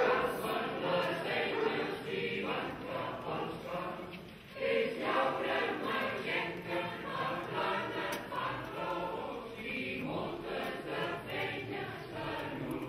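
Mixed choir of women's and men's voices singing, with a brief pause between phrases about four seconds in.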